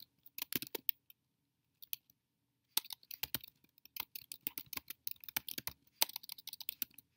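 Typing on a computer keyboard: quick runs of keystrokes, with a pause of about two seconds about a second in and a short break near the end.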